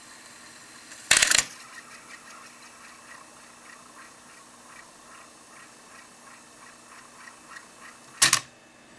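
Technics RS-M234X cassette deck's transport mechanism whirring as it winds a cassette to the end of the tape, with faint ticking. A loud mechanical clack comes about a second in, and a second clack near the end as the mechanism kicks off at the end of the tape (auto-stop).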